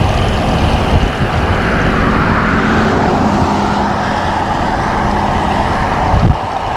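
Steady wind rush over a GoPro's microphone on a bicycle ridden into a strong headwind, with the tyre noise of a passing motor vehicle swelling to its loudest about two to three seconds in.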